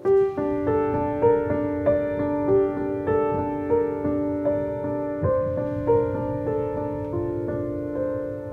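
Background piano music: a gentle melody of single notes, about two a second, over held lower notes.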